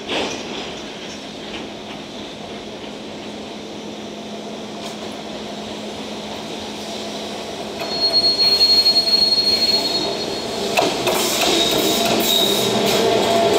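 EF210 electric freight locomotive approaching and passing close, hauling empty container flatcars: a steady hum and rolling noise at first, then about 8 seconds in it grows louder with a high steady wheel squeal, followed by louder clattering of wheels and running gear as the locomotive goes by.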